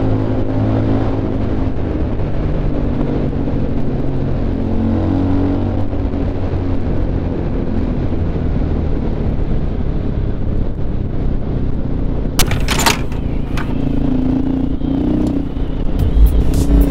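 KTM LC4 Enduro's single-cylinder four-stroke engine running steadily under way, with its pitch shifting as the throttle changes, over wind and road noise. There is a sharp crack about twelve and a half seconds in and a smaller one a second later.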